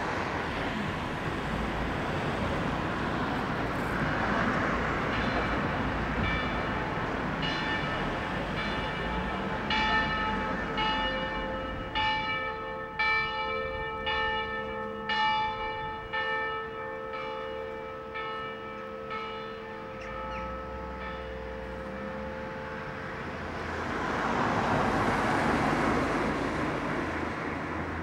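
Bells ringing: a run of struck strokes with long ringing tones that begins a few seconds in, grows denser and then fades out about two-thirds of the way through, over a steady rush of distant city noise that swells near the end.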